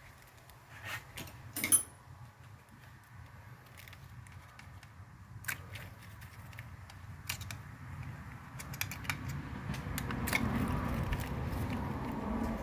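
Hands pulling a wiring harness and its plastic retaining clips loose on an engine: scattered sharp clicks and small rattles, the loudest click about two seconds in. Handling and rustling noise builds over the last few seconds.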